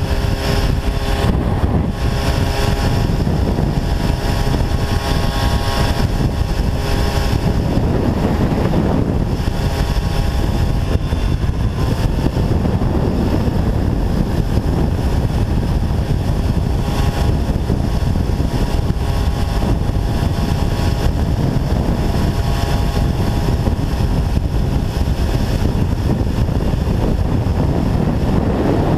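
MBK 51 moped's 50 cc single-cylinder two-stroke engine running steadily while riding along at speed.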